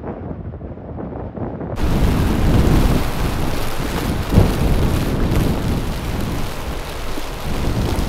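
Blizzard wind blowing hard and gusting, buffeting the microphone with a low rumble. About two seconds in the sound jumps to a fuller, hissier wind, with one sharp gust about four seconds in.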